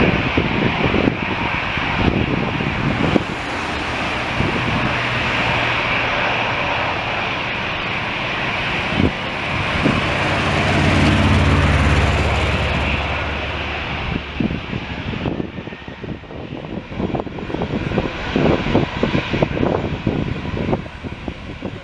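Boeing 777-300ER's twin GE90-115B turbofans at takeoff power: a steady jet roar as the airliner lifts off and climbs away. It grows louder and deeper about ten to thirteen seconds in. After about fifteen seconds it fades to a lower, uneven rumble.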